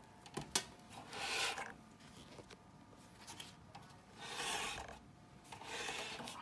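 Open metal chassis of a CA9 power amplifier being turned and slid across a carpet: a click or two, then three rough scraping swishes.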